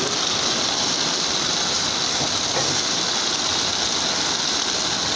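Heavy rain pouring down, a steady even hiss.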